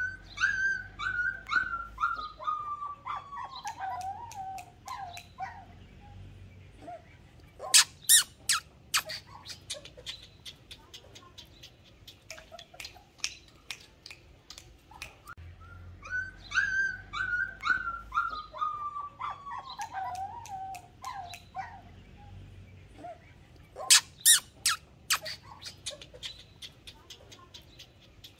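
Puppies whimpering in a run of short cries that fall steadily in pitch, twice, about sixteen seconds apart. Each run is followed by a cluster of loud sharp clicks and lighter ticking.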